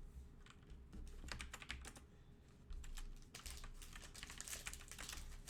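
Faint, irregular light clicks and taps in quick runs, with a low hum underneath.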